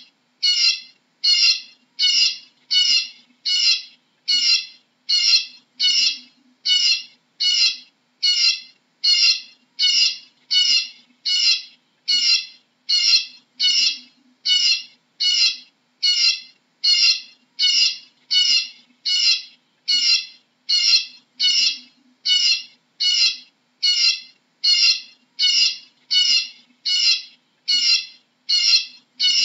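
Eurasian bullfinch calling: one short call repeated at a perfectly even pace, about three calls every two seconds.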